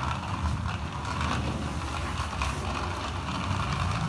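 Plastic toy dump truck rolling across a wooden floor: its wheels make a steady low rumble with light rattling.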